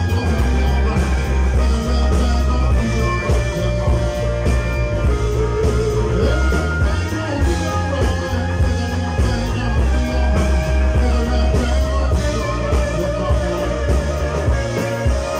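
Live rock band playing electric guitar, bass guitar and drum kit, with a steady beat and heavy bass.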